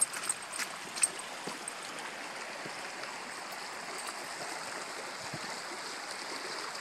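Small forest stream running, a steady rush of water. A few footsteps land on the wooden plank bridge in the first second.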